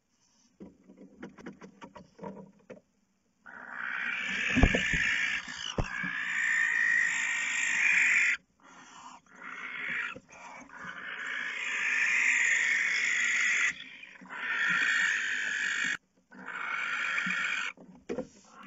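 Barn owls in a nest box giving long, harsh, rasping hiss-screeches, each lasting several seconds with short breaks, starting about three seconds in. Light scratching comes before, and there are a couple of thumps of the birds against the box early in the calling.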